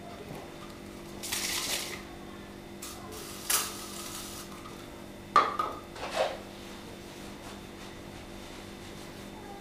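An aerosol spray can gives a few short hisses, with sharp metallic clinks and knocks against a metal plate, all over a steady low hum.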